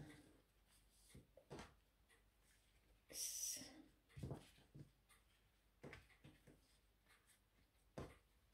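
Near silence with faint rustling and a few soft taps as a damp kitchen paper towel is folded by hand on a stone counter. There is one brief soft swish about three seconds in.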